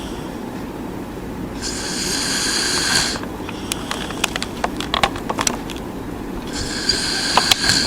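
A person snoring in sleep: two long snores, each about a second and a half and some five seconds apart, with a few light clicks between them.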